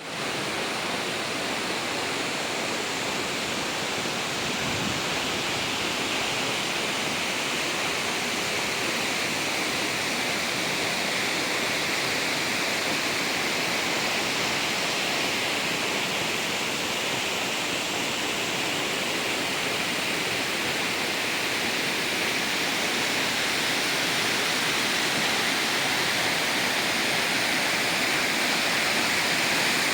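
Waterfall: a steady rush of falling water that grows slowly a little louder toward the end.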